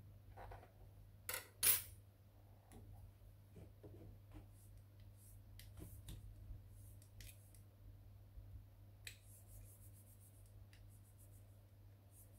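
Small clicks, taps and scrapes of hands handling the plastic and metal parts of a disassembled Canon LBP251 laser printer, with two sharp clicks about a second and a half in, over a steady low hum.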